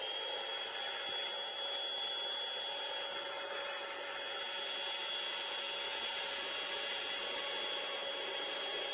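Benchtop drill press motor running steadily at speed, a constant high-pitched whine over a mechanical hiss.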